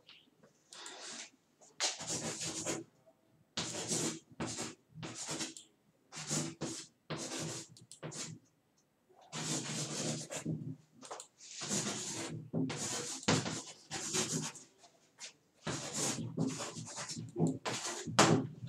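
Chalk writing on a blackboard: a run of irregular scratching strokes with short pauses between them as the words are written out.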